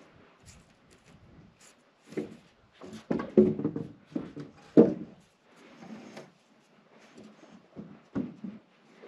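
A wooden 2x4 purlin being shifted and set across the truss chords by hand: irregular wood-on-wood knocks and scrapes, the loudest a few seconds in.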